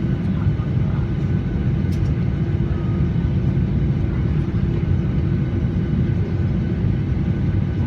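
Steady low rumble inside a jet airliner's cabin as it taxis after landing, with a constant hum running through it.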